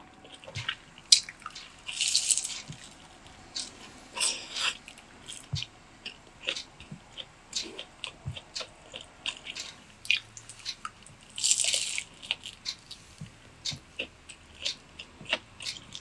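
Close-miked wet mouth sounds from puckered lips: a steady scatter of small lip smacks and clicks, with three longer, breathier kisses about two, four and a half, and twelve seconds in.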